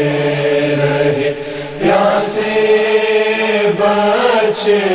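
Male voices chanting a noha, an Urdu Shia lament, unaccompanied, drawing out the words of the refrain in long held notes with a chorus behind them.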